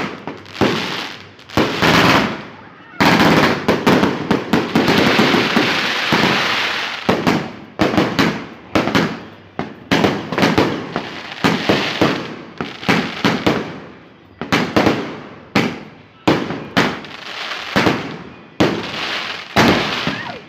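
Fireworks going off: a string of loud sharp bangs, each trailing off in an echo, with a dense rolling barrage of rapid explosions a few seconds in that slowly dies away before single bangs resume about one or two a second.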